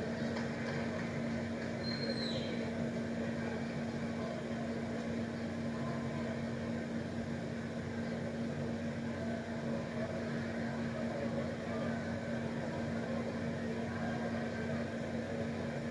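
Steady background noise with a constant humming tone, and a brief high whistle-like tone that falls in pitch about two seconds in.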